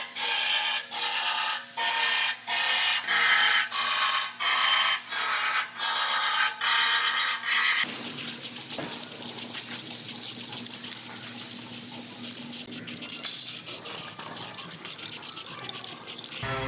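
Background music in even, pulsing notes, cut off about eight seconds in by a steady loud hiss that runs for most of the rest.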